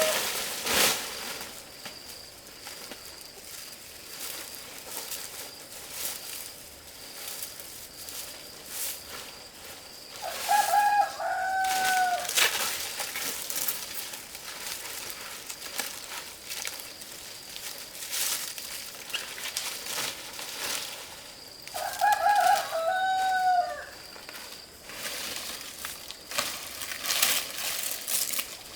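A rooster crows twice, about ten seconds apart, each crow under two seconds long and falling in pitch at the end. Scattered sharp knocks come and go around the crows.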